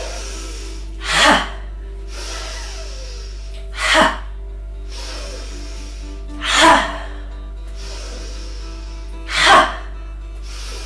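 A woman's forceful 'ha' exhalations through the mouth, four of them evenly spaced about every three seconds: the cathartic out-breath of a yoga 'ski jump' breathing exercise. Soft background music plays steadily underneath.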